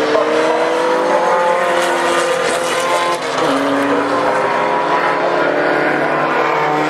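Engines of two historic open-wheel single-seater racing cars running hard, nose to tail, their notes climbing together; about three seconds in one note drops sharply, as at a gear change, then carries on steadily.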